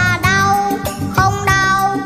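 Children's song: a boy singing a melody over an upbeat instrumental backing track.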